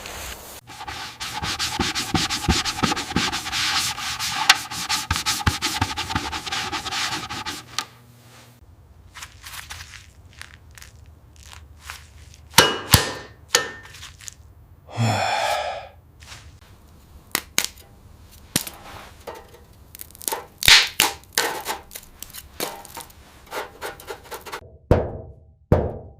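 A power sanding or grinding tool runs steadily for about eight seconds, with a steady motor tone under the rasp. It is followed by scattered knocks, clicks and scrapes of parts being handled, with one brief sound about halfway through that slides in pitch.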